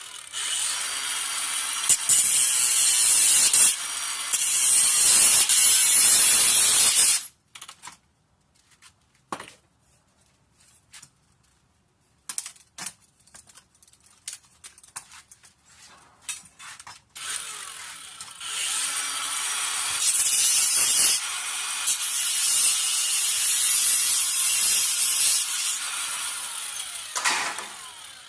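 Hyper Tough 20V brushless 4.5-inch cordless angle grinder running and cutting in two long runs, the first about seven seconds and the second about ten, with scattered clicks and knocks in the pause between.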